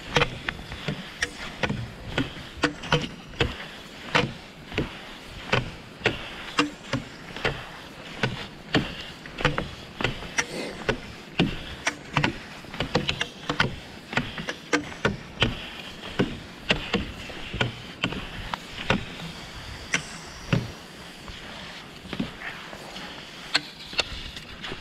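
Classic cross-country skiing on thin, crusty snow: a steady rhythm of sharp clicks from the ski poles and skis, roughly two a second, over the continuous scrape of the skis sliding on the snow.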